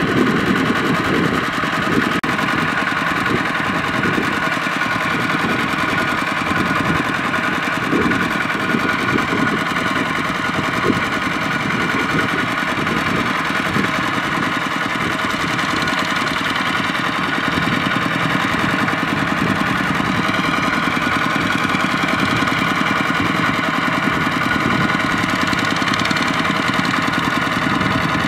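Single-cylinder diesel engine of a two-wheel walking tractor running steadily, its rapid firing beats even throughout.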